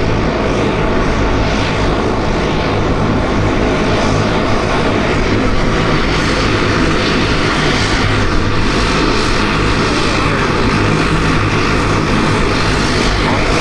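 Twin Wright R-2600 radial piston engines of a North American B-25 Mitchell (USMC PBJ) running, a loud, steady propeller-aircraft drone.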